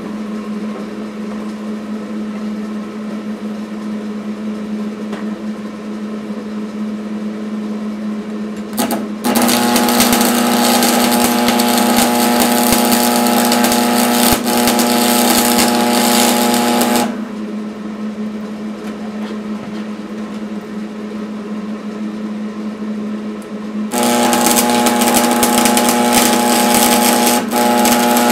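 Stick (arc) welding with a stainless steel rod: the arc crackles and hisses in two runs, the first starting about nine seconds in and stopping after about eight seconds, the second starting near the end. A steady hum sounds throughout, a little louder while the arc burns.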